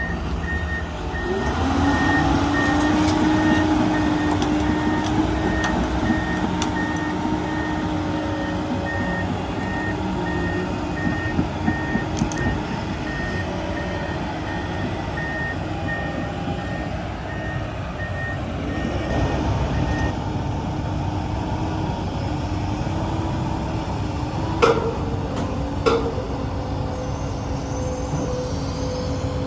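Komatsu PC290LC-11 excavator's diesel engine running and revving up about a second in, with its travel alarm beeping steadily at a high pitch, about two beeps a second, until it stops about two-thirds of the way through. Two sharp metallic knocks come near the end.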